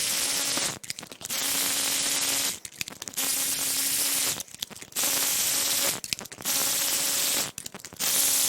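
Air ratchet spinning spark plugs out of a BMW S52 straight-six cylinder head. It runs in six bursts of about a second each, half a second apart, each a hissing rush of air with a steady whine.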